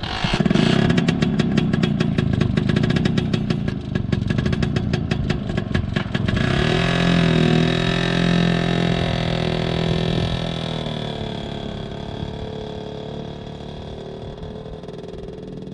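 Vintage scooter engine running with a fast, even clatter, then revving up about six seconds in as the scooter pulls away, and slowly fading as it rides off.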